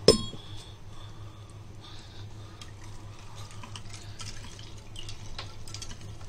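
A metal spoon stirring ice cubes in a glass of drink. It opens with one sharp, ringing clink of spoon on glass, then goes on as faint, irregular clinks and the swish of liquid.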